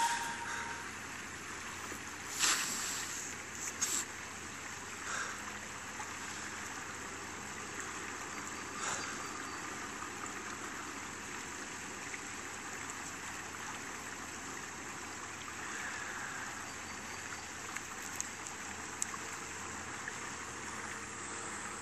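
Steady rushing of a flowing stream, with a few short clicks at about two and a half seconds, four seconds and nine seconds in.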